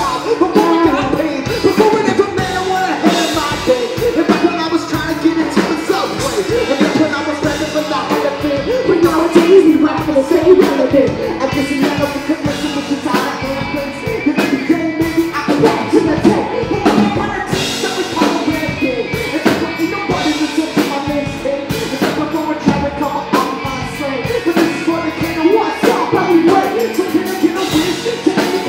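Live rock band playing: a sung vocal over electric guitar, electric bass and a drum kit, amplified through a PA.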